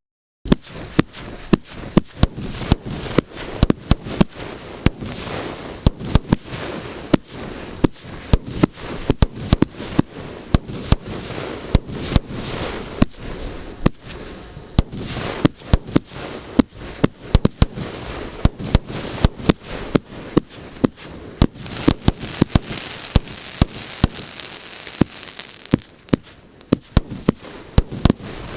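Firework battery (cake) firing its shots one after another, about one or two sharp bangs a second over a crackling hiss, with a louder crackling spell about three-quarters of the way through.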